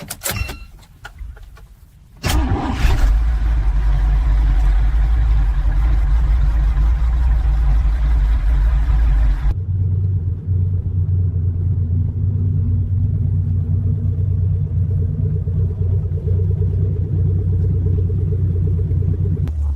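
Car engine starting with a sudden loud rumble about two seconds in, after a few clicks, then running steadily; about halfway through the sound cuts abruptly to a different, steadier low engine hum.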